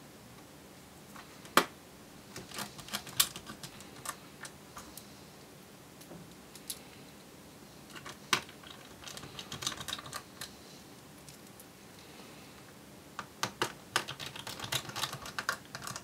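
Small screws and a precision Phillips screwdriver clicking and tapping against a laptop's drive mount and chassis as the screws are driven in. The sound comes as scattered sharp clicks and short runs of rapid ticking.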